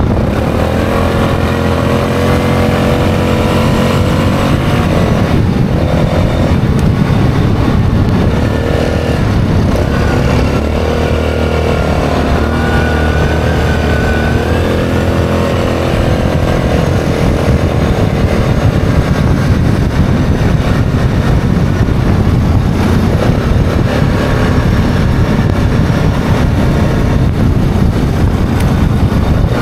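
ATV engine running under way, heard from the rider's seat, its pitch dipping and climbing several times in the first half and then holding fairly steady, over a steady rush of noise.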